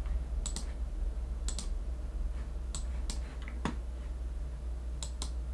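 Sharp computer clicks from a mouse and keyboard, mostly in close pairs, coming about once a second at irregular intervals, over a steady low hum.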